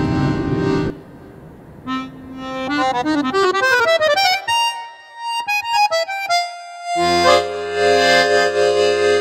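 Background music: a chord breaks off about a second in, followed by quick runs of rising and falling notes, a single held note, and then a full chord held through the last couple of seconds.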